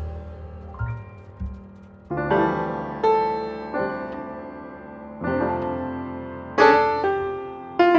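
Background piano music: chords struck every second or so, each ringing and fading.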